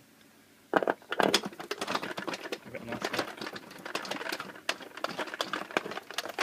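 Dense, irregular clicking and rattling of a vintage Eagle vending machine's metal and hard-plastic parts being handled and fitted back together, starting with a sharp clatter about a second in.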